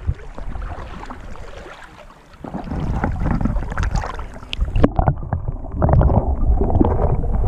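Lake water splashing and sloshing against a camera held at the surface by a swimmer. About five seconds in, the sound turns muffled and low as the camera dips underwater.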